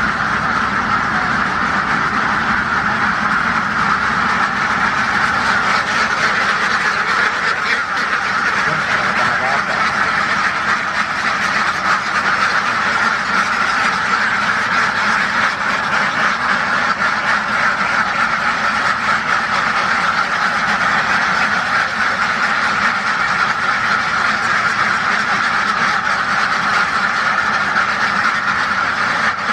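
A flock of farm ducks quacking loudly and continuously, many calls overlapping into a steady chorus.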